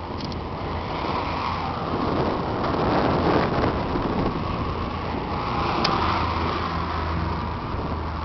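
A steady engine drone under broad rushing noise, swelling about three seconds in and again about six seconds in.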